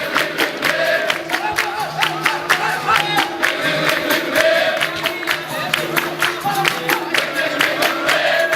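Capoeira roda music: a group singing in chorus over an even, driving beat of hand-clapping and percussion, with the steady twang of berimbaus underneath.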